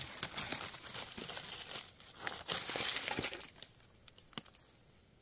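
Rustling and crackling of dry forest leaf litter and twigs being disturbed while mushrooms are picked, busy for the first three seconds and then dying away.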